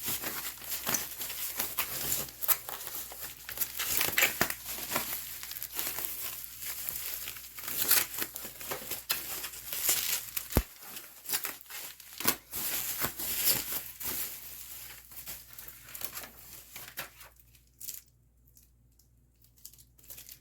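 Plastic packaging crinkling and crackling in irregular bursts as a replacement laptop screen is unwrapped, settling down for the last few seconds.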